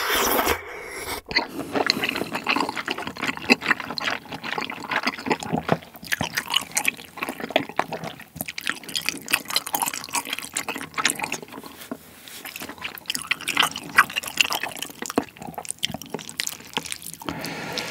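Close-miked slurping of a thick, chewy Chinese glass noodle in spicy malatang broth, then continuous wet chewing: a louder slurp at the start, followed by a dense run of small moist clicks and smacks.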